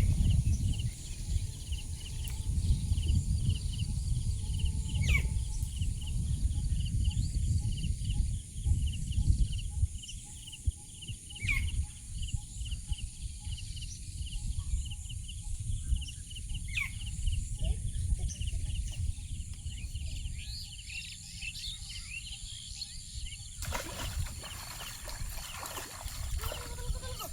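Outdoor rural ambience: a steady high buzz and rapid repeated chirping from insects and birds, with a low rumble for the first few seconds and a short burst of noise near the end.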